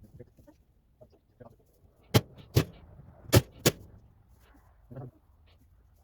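Four sharp knocks in two quick pairs, struck while straw is being dug out of a baler.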